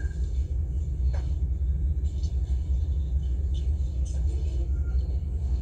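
Steady low rumble, like a motor or vehicle hum, with a few faint ticks over it.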